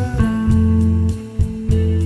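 Background music with a plucked guitar and a steady bass pulse.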